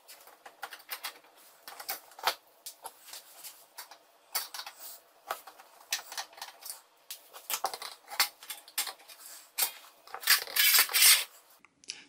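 A screwdriver backing screws out of a dishwasher's bottom access panel: irregular light clicks and ticks of the tool on the screws and panel, with a louder scraping stretch near the end.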